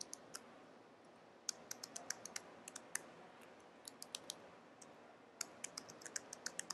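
Typing on a computer keyboard: faint, quick key clicks in several short runs with brief pauses between them.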